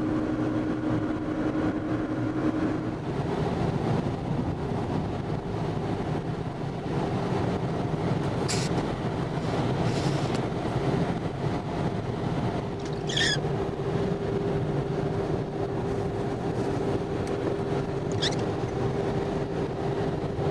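Steady road and engine drone heard inside a moving car's cabin, its hum stepping up slightly in pitch about three seconds in. A few brief, sharp high sounds stand out over it.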